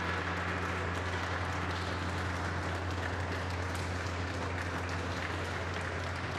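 A group applauding with steady hand clapping, while the ringing of a large ceremonial gong, just struck, dies away in the first second or so.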